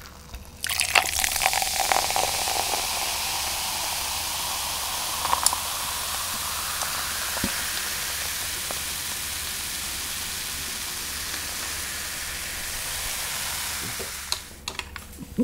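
A steady sizzling hiss that starts a little under a second in and fades out near the end.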